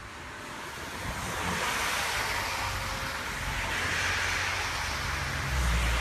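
Wind gusting across a phone's microphone: a rushing hiss that swells up over the first couple of seconds and rises and falls, with irregular low rumbling buffets, heaviest near the end.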